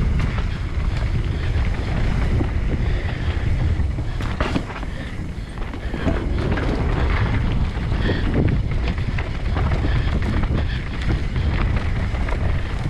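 Wind buffeting a helmet-mounted camera microphone during a fast downhill mountain bike descent, with the GT Fury downhill bike's tyres running over dirt and short knocks and rattles as it hits bumps.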